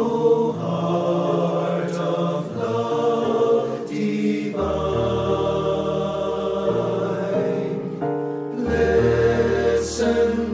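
Choir singing a slow hymn in Gregorian chant style, long held notes changing every couple of seconds over a low sustained accompaniment that changes note twice.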